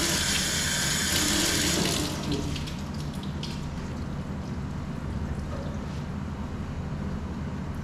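Water running from a newly installed commercial kitchen faucet into the sink during a leak test. It is shut off about two seconds in, leaving a steady low hum and a few faint clicks.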